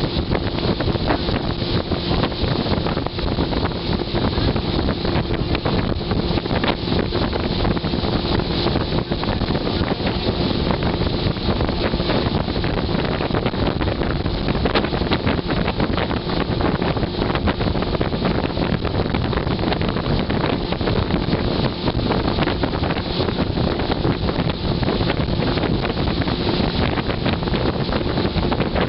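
Heavy wind buffeting the microphone on an open motorboat running at speed, with the boat's engine a steady hum underneath.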